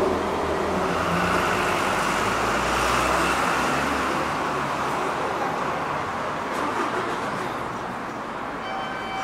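Steady rumble and hiss of passing vehicles, loudest in the first few seconds and then slowly fading.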